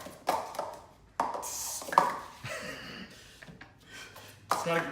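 Plastic speed-stacking cups clattering against each other and the table during a 3-6-3 stack, a quick run of light clacks with one sharp clack about two seconds in.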